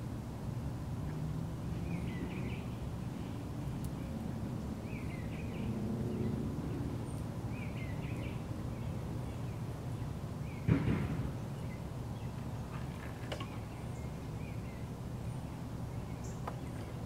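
Outdoor ambience: a steady low rumble with a few short bird chirps a few seconds apart, and one sharp knock about eleven seconds in.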